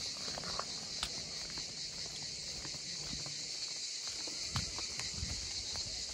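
A steady high-pitched chorus of cicadas in the summer trees, with footsteps on a concrete path and a few sharp ticks among them, the loudest about four and a half seconds in.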